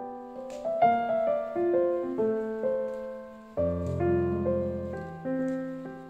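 Background piano music: slow notes and chords, each ringing on and fading before the next is struck.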